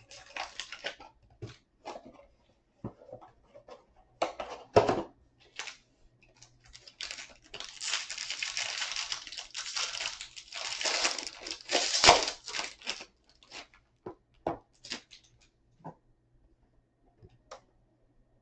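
Packaging of a sealed trading-card box being torn open: crinkling and tearing of wrapper, heaviest from about 7 to 13 seconds in, among scattered taps and clicks of handling cardboard.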